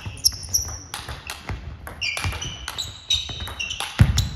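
Table tennis rally: the ball clicking off bats and table in quick succession, with rubber shoe soles squeaking on the sports-hall floor. A heavy footfall lands about four seconds in.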